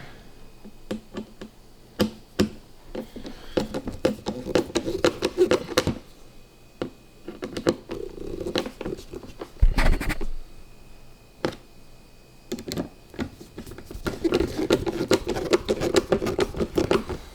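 Hand screwdriver driving small screws into a BMW door handle assembly: scraping and rapid clicking in several spells of turning, with sharp knocks between them.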